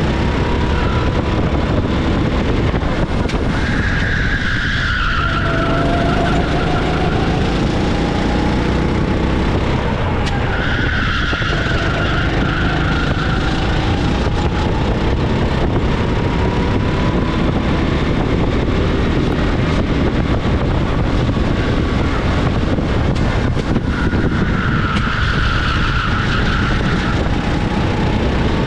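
A 390 cc kart engine heard onboard, running hard with its pitch climbing steadily along the straights and dropping as it slows for corners. Tyres squeal through three corners, about four, eleven and twenty-five seconds in.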